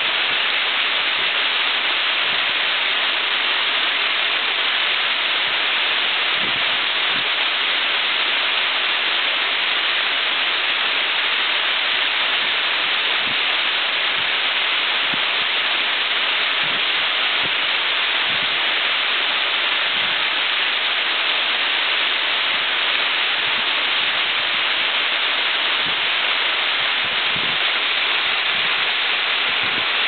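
Waterfall spilling down a rock face in many streams and splashing at its foot: a steady, dense rushing hiss that does not change.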